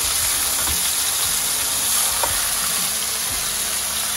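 Marinated yellowfin tuna searing in very hot oil in a nonstick frying pan, a steady sizzle, with a few light taps of a fork and spatula as the pieces are turned.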